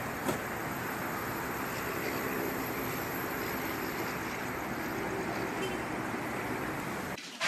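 Steady outdoor street ambience: a continuous rushing hiss with no clear single source, and one short click just after the start.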